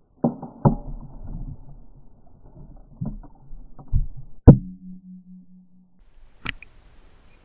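A series of dull thumps and knocks, the loudest about four and a half seconds in, followed by a short steady low hum that cuts off suddenly and then a single sharp crack.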